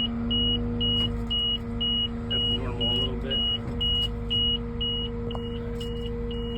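Caterpillar excavator running steadily, heard from the cab as a low rumble with a constant hum, while an in-cab warning beeper sounds a short high beep about twice a second.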